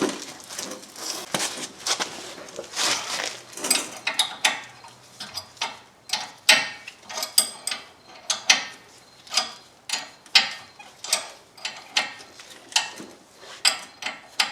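Metal hand-tool clinks and clicks: a stretch of clattering and scraping, then a long series of sharp single clicks about once or twice a second, as a grease (Zerk) fitting is threaded into a new lower ball joint.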